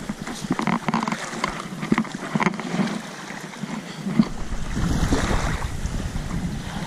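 Water splashing and sloshing in irregular bursts, with low wind rumble on the microphone coming in about four seconds in.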